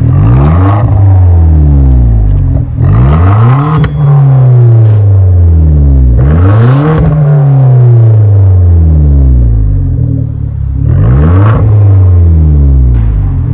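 2011 Hyundai Genesis 2.0T's turbocharged four-cylinder revved through a Race Demon cat-back split dual exhaust: four sharp rev blips, each rising quickly and falling back to idle, with a deep exhaust tone.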